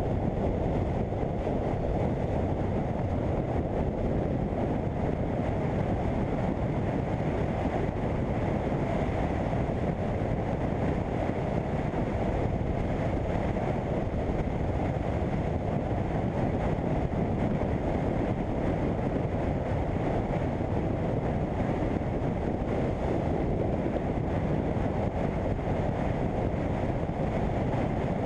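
Steady wind rush over the microphone of a BMW F800GS motorcycle riding along at speed, with the bike's engine running beneath it.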